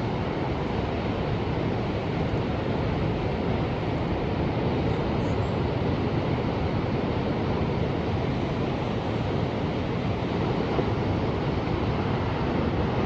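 Ocean surf: a steady wash of waves with no distinct breaks, rising slightly near the end.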